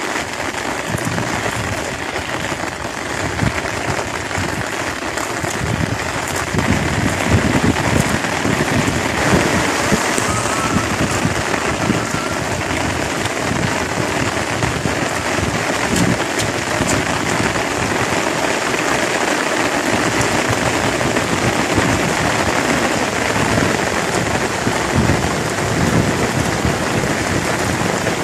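Steady rain falling on a pond's surface and the grass around it, a dense even hiss with scattered low thuds.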